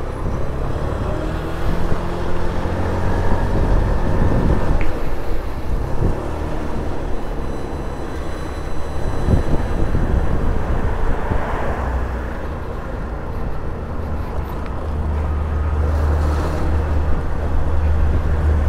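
Motor scooter being ridden along a street: engine running under a steady low rumble of wind and road noise.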